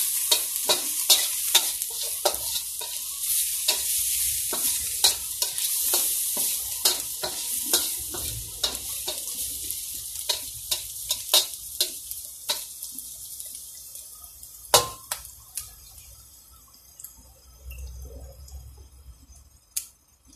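Metal spatula scraping and tapping against a wok, about two strokes a second, while garlic, ginger and dried shrimp sizzle in hot oil. After about twelve seconds the sizzle fades and the strokes become sparse, with one loud knock of the spatula on the pan.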